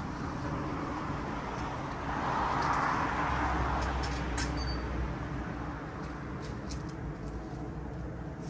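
Outdoor traffic noise: a vehicle goes by on the street, swelling and fading over a few seconds, with a few light clicks near the middle.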